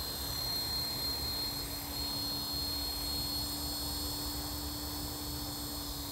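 Align T-Rex 450 LP Dominator electric RC helicopter hovering low over the ground: a steady high whine from its motor and rotors with a lower hum beneath, holding even pitch as it is brought in to land.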